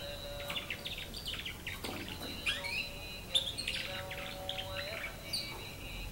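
Young canary, about nine months old, twittering in short chirps and sweeping notes as it learns its song, over a faint steady high tone.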